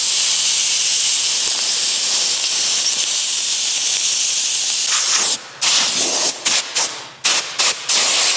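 Compressed-air blow gun hissing steadily against a car's painted body panel, blasting loose flaking paint off it. About five seconds in, the steady blast breaks into short bursts, about three a second, as the trigger is pulsed.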